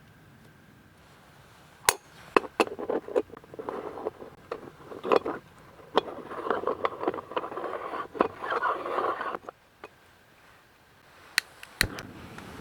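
Camp gear being handled: a run of sharp knocks and clinks, then a few seconds of scraping and rustling, and two more clicks near the end.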